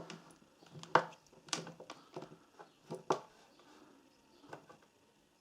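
Light, scattered clicks and taps of a spark plug and multimeter test probes being handled and put together for a resistance check, the sharpest click about a second in.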